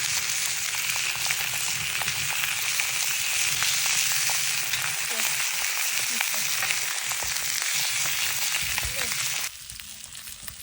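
Beefsteak sizzling as it fries, a steady loud hiss full of small pops and crackles that cuts off abruptly near the end.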